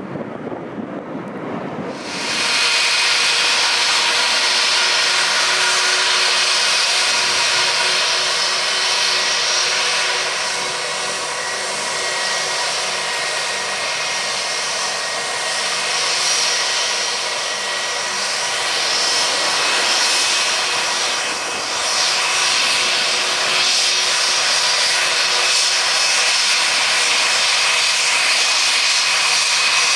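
Wind rumbling on the microphone, then, about two seconds in, the loud, steady whine of an SAS Airbus A320's twin jet engines running as the airliner taxis. The engine level holds with only slight dips.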